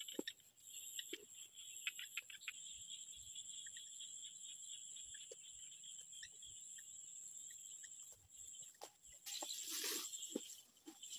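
Steady high-pitched insect chorus, with scattered steps and rustles of rubber boots in grass. Near the end there is a louder swish as the boots brush the grass close by.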